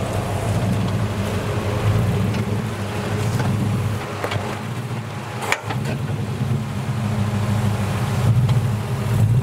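Nissan Patrol GQ's engine running at low revs as the 4x4 crawls up a rock step. The engine note eases off about halfway through, with one sharp click, then picks up again.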